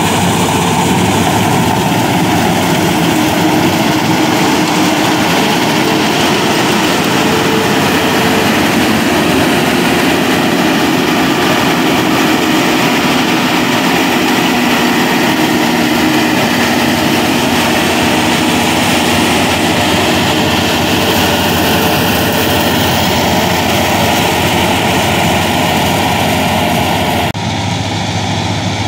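Six-cylinder Fiat diesel engine of a combine harvester converted to a wheat straw chopper, running steadily under working load, with the chopper and belt drives churning along with it. Near the end the sound turns duller and more distant, the high end falling away and a low hum standing out.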